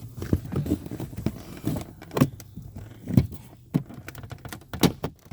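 Irregular sharp clicks and knocks of parts being handled and fitted during a car's cabin air filter change, a dozen or so, the loudest about two, three and nearly five seconds in.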